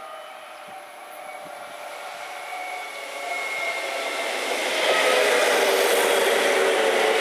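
Hokuso Railway 9100 series 'C-Flyer' electric train approaching and running past close by: a rushing noise of wheels on rail with several steady whining tones, growing louder until about five seconds in, then staying loud as the cars go by.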